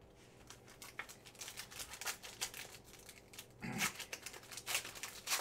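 Foil wrapper of a Panini Prizm football card hobby pack being torn open and crinkled in the hands. It makes a quick, irregular run of crackles that grows louder after about half a second, with louder crinkles near the end.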